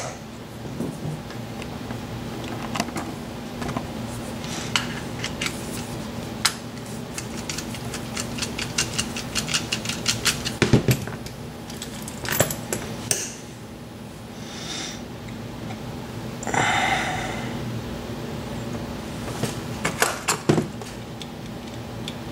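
Scattered small metallic clicks and taps as a padlock and small tools are handled, with a few brief scraping rustles, over a steady low hum.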